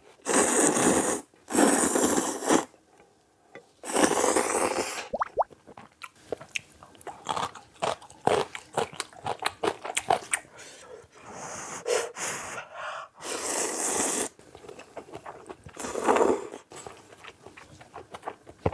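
Ramen noodles slurped in about five long draws of about a second each, with wet chewing and small mouth clicks in between.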